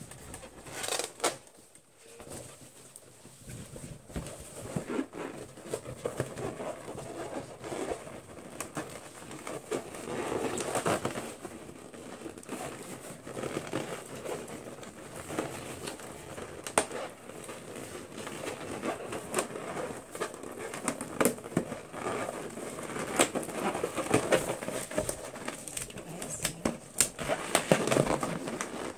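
Latex balloons being handled: rubber rubbing and squeaking against rubber and hands, with fingernails scratching and picking at the balloon skin and knot, and scattered small sharp clicks.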